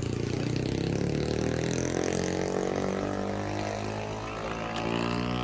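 A small motorcycle engine running. Its pitch rises for a second or two as it picks up revs, then holds steady.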